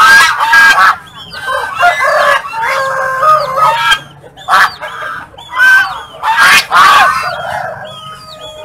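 Waterfowl honking over and over in loud, harsh calls, with small birds chirping faintly in the background.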